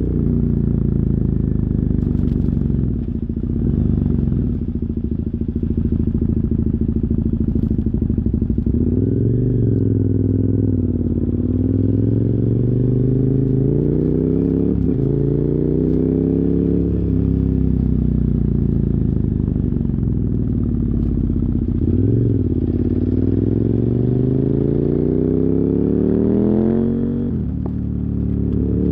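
KTM 990 Super Duke R's 75-degree V-twin running through dual Yoshimura carbon exhausts under way, the revs rising and falling several times with the throttle. A long climb near the end breaks off with a sudden drop in revs. It is picked up by a phone microphone in the rider's backpack.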